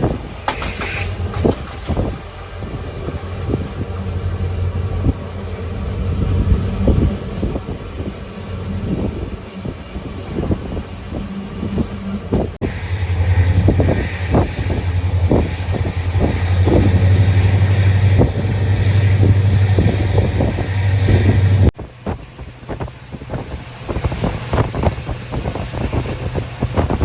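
Moving train heard from behind a WDP4 diesel locomotive: the EMD two-stroke engine gives a steady low hum under a run of wheel knocks and clatter over the rails. The sound shifts abruptly twice, and the hum is strongest in the middle stretch.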